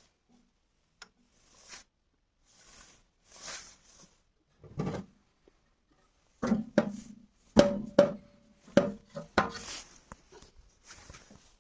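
Scattered knocks and clicks of hands and tools on the band saw's metal parts while its lower blade-guide bearings are adjusted; the loudest come in a quick cluster past the middle, a few with a short metallic ring.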